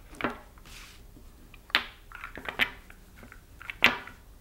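Magnetic wooden blocks clacking against each other as they are turned and snapped into place, four short sharp clicks spread over a few seconds.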